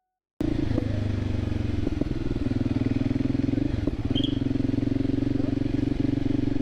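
Voge 300 Rally motorcycle's single-cylinder engine running steadily with an even fast pulse, cutting in abruptly a moment in.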